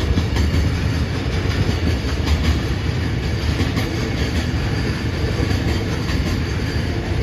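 Container flatcars of a long freight train rolling past close by: a steady rumble of steel wheels on rail, with faint clacks as the wheels cross the rail joints.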